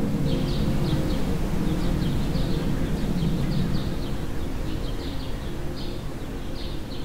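Small birds chirping in quick repeated calls, several a second, over a low rumbling wind-like ambience; a soft held music chord fades out in the first few seconds.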